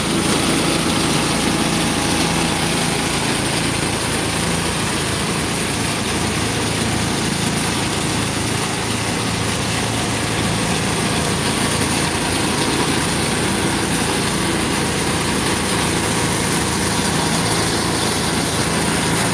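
A water tanker truck's engine running steadily at idle while a hose sprays water.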